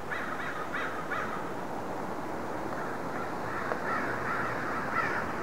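A flock of crows cawing: four quick caws in the first second and a half, then a further cluster of calls about four seconds in, over a steady background hiss.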